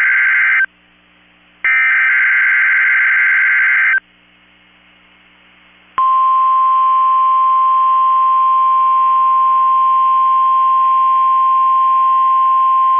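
NOAA Weather Radio emergency alert signal. Two screeching bursts of SAME digital header data, each ending abruptly with a short silence after it. About six seconds in, the steady 1050 Hz warning alarm tone starts and holds.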